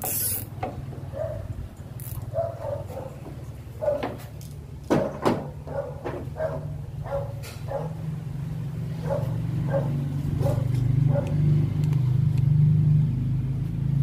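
A dog barking repeatedly in short yelps over a steady low hum that grows louder in the second half, with a few sharp clicks and rustles from wiring and cable ties being handled.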